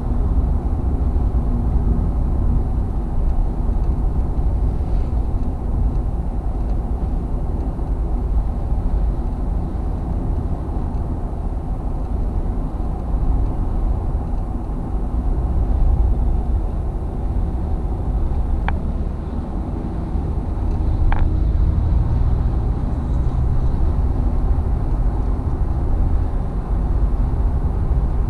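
Car interior noise at highway speed: a steady low rumble of road and tyre noise with the engine running underneath. Two short clicks about two and a half seconds apart come past the middle.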